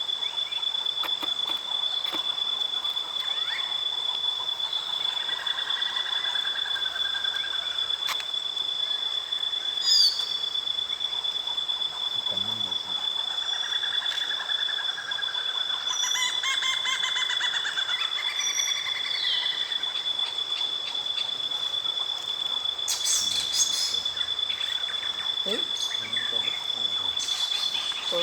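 Night forest ambience: crickets trilling in one steady, unbroken high-pitched tone, with birds calling intermittently over it.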